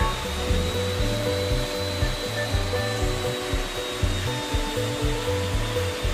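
Belt sander running with a hickory handle held against its moving belt: a steady sanding hiss and motor whir with a thin high whine over it. Background music with a bass beat plays underneath.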